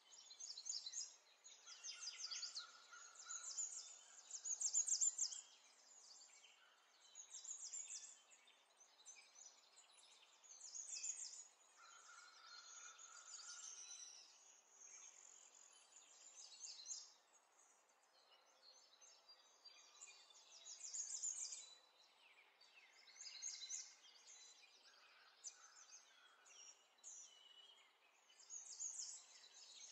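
Faint birdsong: high, rapid chirping trills in bouts of a second or two, one after another, over a soft hiss.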